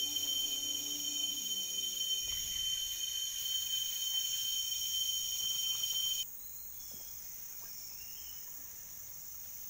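Rainforest insect chorus: several insects hold steady, high-pitched, shrill trills together. About six seconds in, the loudest trills stop abruptly and a fainter insect chorus carries on.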